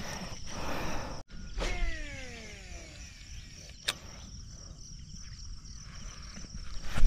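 Baitcasting reel's spool whirring out on a cast, a whine that falls in pitch over about a second as the spool slows. A single sharp click follows a couple of seconds later, over a steady high insect drone.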